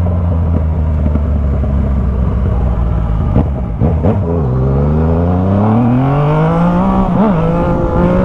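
Yamaha MT motorcycle engine running through a Jescap GP2 aftermarket exhaust. It holds a steady note, drops briefly about four seconds in, then climbs in pitch as it accelerates, with a short dip near the end like a gear change. The revs climb easily.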